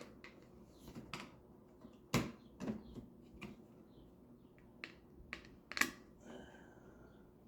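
Scattered small clicks and taps of a plastic wall-switch cover plate and its screws being handled and fitted over the switch, the loudest about two seconds in and near six seconds.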